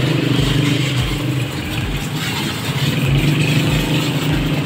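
Self-service pressure washer's pump motor running, a steady hum with a low throb that repeats a little more than once a second.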